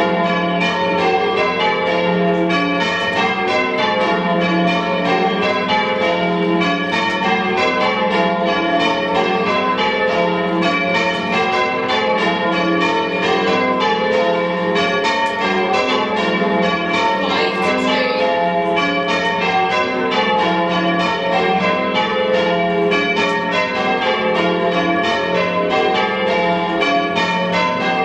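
A heavy ring of six church bells, cast by Richard Keene in 1676 with the tenor in F, change ringing: the bells strike one after another in a steady, continuous rhythm.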